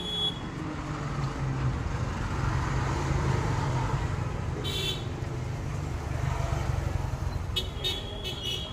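Background road traffic, a steady low rumble, with a short high-pitched toot about halfway through and a few brief high tones near the end.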